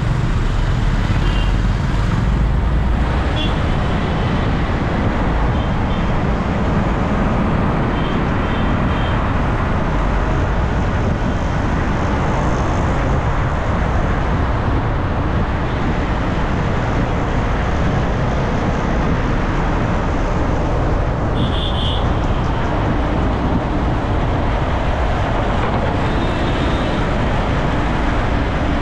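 Steady road-traffic noise from slow, dense city traffic: engines and tyres rumbling close by. Short high-pitched beeps cut in several times.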